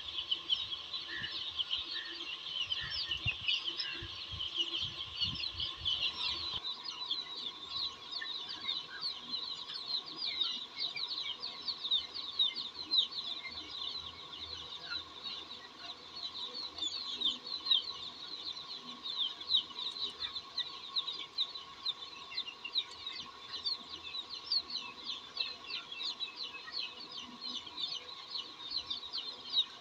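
A brood of young chicks peeping all together, a dense, unbroken chatter of short, high, downward-sliding cheeps.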